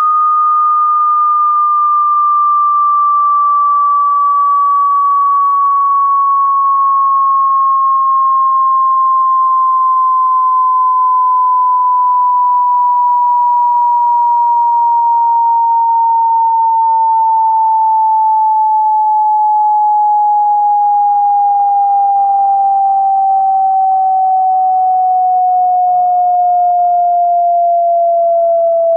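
A slow frequency-sweep test tone: a single pure sine tone gliding smoothly and steadily downward in pitch, dropping almost an octave, at a constant loud level.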